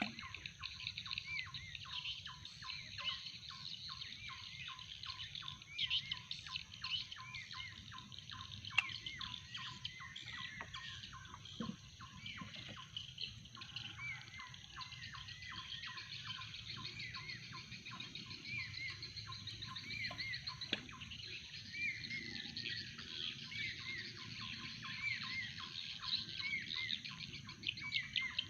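Birds chirping continuously: short arching calls repeated several times a second, with a faint steady high hiss behind them.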